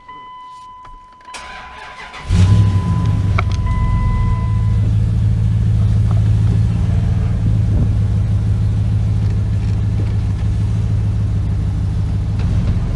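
Dodge Ram pickup's engine cranking for about a second, then catching and running at a steady idle. A steady electronic warning tone from the dash keeps sounding until a couple of seconds after the engine starts.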